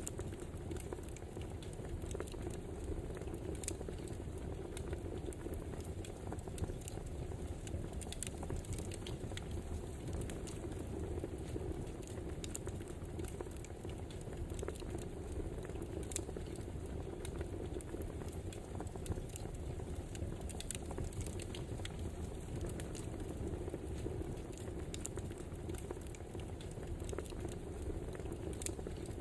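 Wood fire crackling: a steady low noise with frequent, irregular small pops and snaps.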